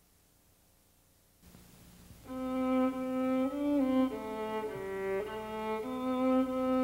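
Faint hum and tape hiss, then about two seconds in bowed-string music begins: a slow melody of long held notes that change pitch every half second or so.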